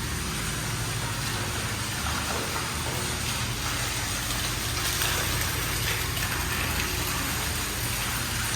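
Indoor water fountain running: a steady splashing of falling water, with a low hum underneath.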